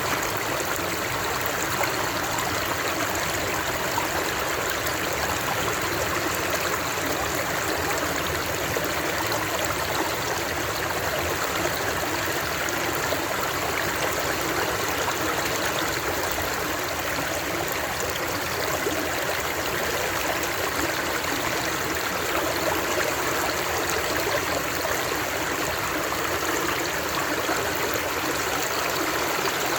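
Running water flowing steadily and without change, a constant rushing with little deep rumble.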